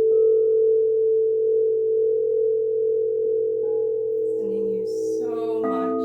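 Singing bowl ringing with a steady, sustained hum. Late on, other bells or chimes sound over it, and a new bowl tone is struck about five and a half seconds in and rings on.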